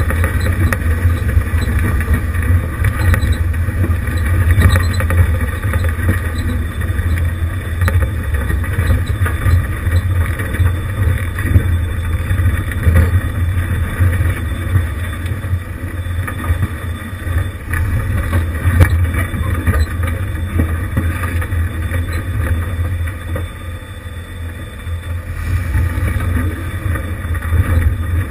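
1988 Jeep Wrangler YJ engine running at low speed as it crawls over a rocky trail, with scattered knocks and rattles from rocks and the body. The engine sound eases briefly about three-quarters of the way through, then picks up again.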